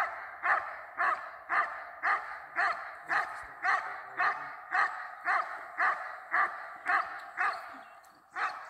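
A dog barking steadily in a regular rhythm, about two barks a second, breaking off briefly near the end before the barking starts again.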